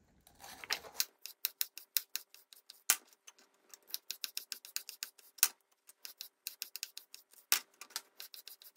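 Samura chef's knife slicing a red bell pepper into strips on a bamboo cutting board: quick, irregular taps of the blade on the wood, with a few louder knocks among them.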